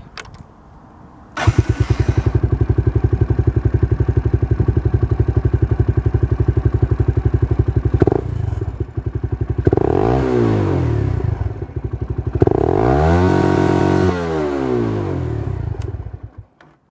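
Daelim Roadwin 125's single-cylinder four-stroke engine idling with an even pulsing beat. It is revved twice, about ten and thirteen seconds in, its pitch rising and then falling back to idle, and it cuts off suddenly near the end.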